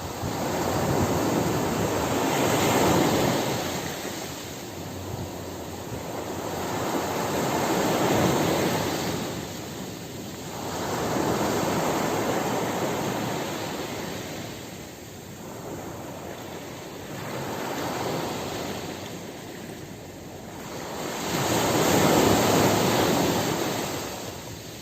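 Sea waves breaking and washing in, a wash of noise that swells and fades five times, about every five seconds.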